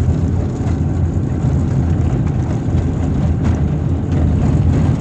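Car driving over broken, potholed asphalt, heard inside the cabin: a loud, steady low rumble of engine and tyres on the rough road.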